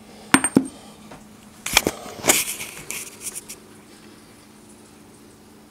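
Glass insulators knocking together as they are handled. There are two sharp clinks about a third of a second in, the first with a brief high ring. Around two seconds in comes a cluster of knocks and scraping that fades out by about three and a half seconds.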